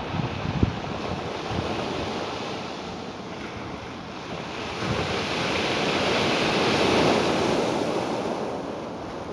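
Ocean surf washing continuously. A wave swells and breaks about halfway through, loudest a couple of seconds later, then washes back out near the end.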